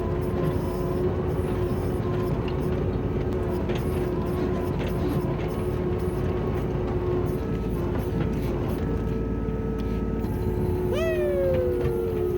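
Kubota U27-4 mini excavator running steadily with a constant whine. Near the end, a short squeal jumps up and slides down in pitch over about a second.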